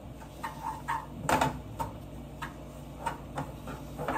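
Wooden spatula knocking and scraping against a nonstick frying pan as wheat flour is stirred into melted ghee, a series of short, irregular light clicks.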